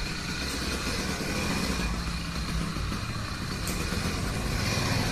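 A motorised bicycle's 70cc two-stroke engine running steadily.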